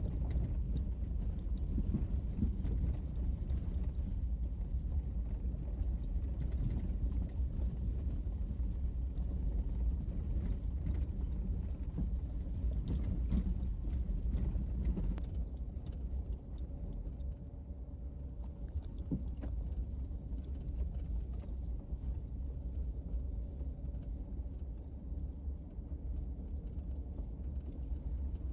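Four-wheel-drive vehicle driving a rough dirt trail: a steady low engine and road rumble with scattered knocks and rattles. About halfway through the sound shifts and gets a little quieter.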